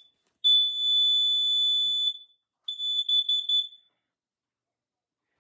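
Smoke alarm's piezo horn sounding as its test button is pressed: a high, shrill tone held for nearly two seconds, then a shorter stuttering burst of the same tone lasting about a second before it cuts off.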